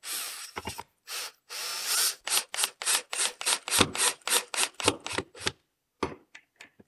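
Cordless drill/driver driving a screw through a curtain-rod bracket into a wall stud: a longer run of the drill at first, then a rapid series of short bursts, about five a second, as the screw is worked in, and a few fainter ones near the end.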